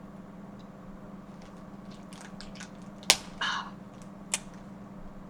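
Snow crab leg shells being cracked open by hand: a run of small crackles, then a sharp snap about three seconds in, a brief crunch, and a second snap about a second later.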